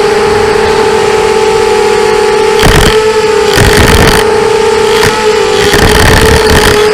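A 250cc engine running with a steady high whine, a sound the owner puts down to bad bearings. Louder, rougher surges of noise break in four times from about the middle on.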